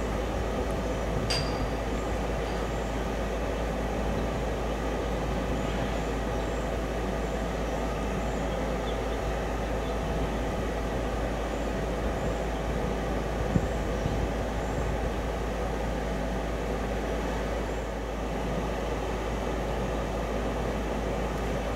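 Steady mechanical drone with constant hum tones, like heavy machinery running at idle, with a sharp click and a short high ping about a second in.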